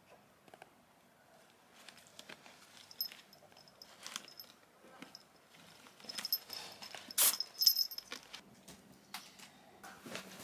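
Small bell on a kitten's collar jingling while the kitten claws and bites a sisal-rope scratching toy, with scratching and rustling of claws on the rope. The jingling comes in short runs, once about three seconds in and again between six and eight seconds, loudest around seven seconds.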